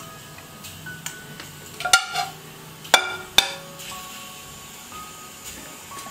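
Background music with a light melody. Over it, a ceramic bowl knocks sharply against a plate three times: once about two seconds in with a short ring, then twice more a second or so later.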